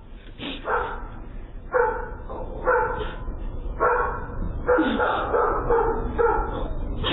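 A dog barking over and over, about a dozen short barks at uneven spacing.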